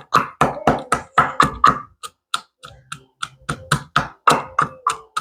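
Pestle pounding sliced onions in a mortar, a fast run of dull knocks about four a second, crushing the onions to release their juice.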